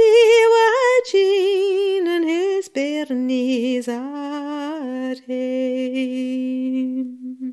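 A woman's voice singing the closing phrase of a traditional Scots song unaccompanied and without clear words. The melody moves through several notes with vibrato, then falls to a long held low note that ends the song.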